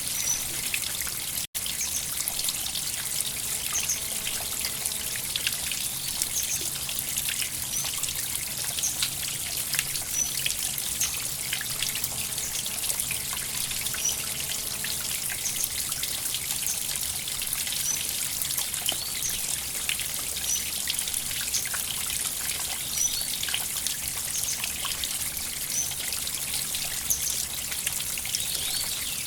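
River water trickling and splashing over stones in a steady, busy hiss, with small high chirps repeating about every two seconds. The sound briefly cuts out about a second and a half in.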